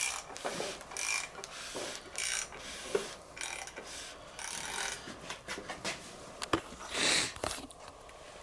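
Hand ratchet clicking in short runs as connecting rod cap bolts on an engine short block are run down, with a few sharp metal-on-metal knocks and one longer, louder run of clicks near the end.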